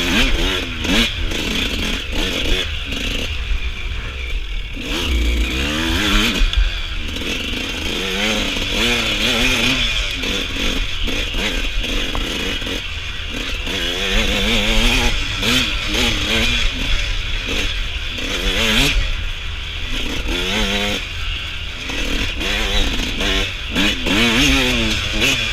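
Suzuki RM125 single-cylinder two-stroke dirt bike engine revving up and down over and over as it is ridden hard, over a steady rushing noise with occasional clatter.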